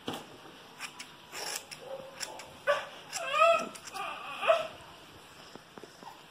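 A small dog whimpering and yipping, a few short high cries rising and falling in pitch around the middle. Over this come soft snips of household scissors cutting hair.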